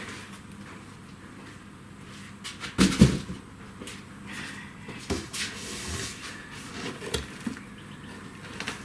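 Heavy CNC router parts and their packaging being handled during unboxing. There is a loud double thump about three seconds in, then lighter knocks and rustling.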